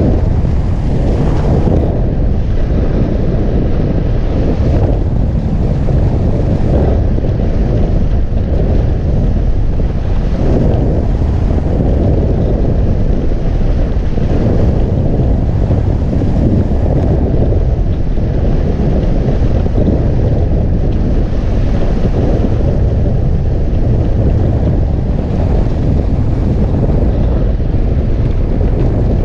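Loud, steady wind noise buffeting the microphone of a camera mounted on a hang glider, caused by the airflow over the glider in flight.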